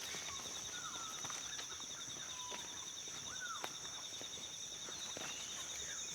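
Tropical rainforest ambience: a steady high insect drone with a rapidly pulsing insect trill beneath it, and a bird giving several whistled calls that slide down or arch up and down in pitch. Scattered light clicks, like footsteps on the forest floor, run through it.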